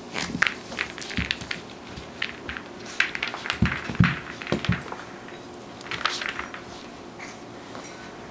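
Schipperke puppy shaking and wrestling a rope toy with a tennis ball: irregular thumps as the ball hits the floor, with scuffling and clicking of paws and the rope, busiest in the first five seconds and again briefly about six seconds in.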